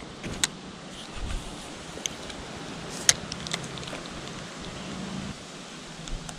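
Quiet outdoor background on the water: a faint steady low hum under a soft haze, with a few light, sharp clicks of fishing tackle being handled.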